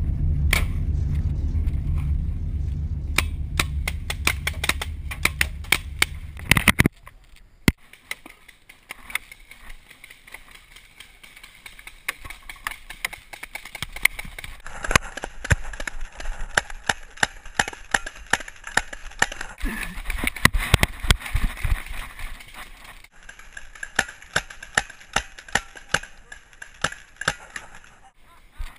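Paintball markers firing: irregular runs of sharp pops, thickest in the second half. A low rumble under the first seven seconds cuts off abruptly.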